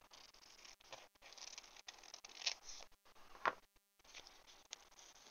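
Faint rustling and crackle of a roll of paper washi tape being handled and peeled off by hand, with two sharper crackles a little past the middle.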